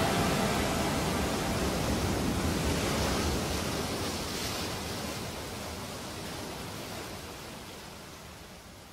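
A steady rushing noise with no tune or beat, fading slowly out.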